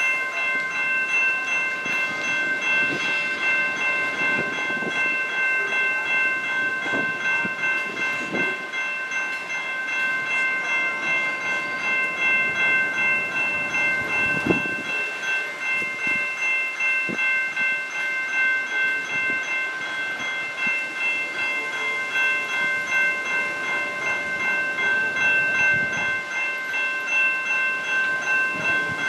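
Freight cars rolling through a grade crossing, wheels knocking irregularly over the rails with a sharper clank about halfway through, while the crossing's warning bell rings steadily.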